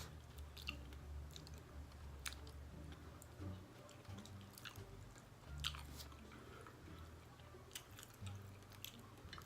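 Faint, close-miked chewing of a Hamburger Helper beef-and-pasta dish, with soft, scattered mouth clicks and smacks.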